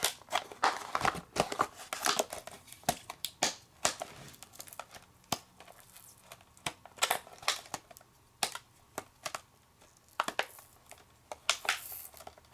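Thin clear plastic packaging crinkling and crackling as it is squeezed and twisted by hand, in irregular sharp crackles and clicks. The crackles come thick at first, thin out in the middle, and pick up again with a short rustle near the end.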